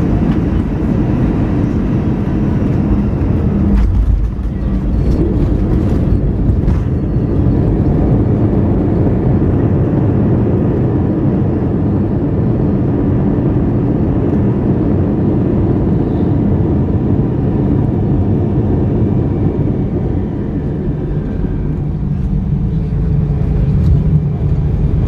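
Airbus A320 cabin noise during landing: a loud, steady rumble and roar of the engines, air and wheels on the runway, with a jolt of touchdown about four seconds in. The roar eases somewhat later and builds again near the end.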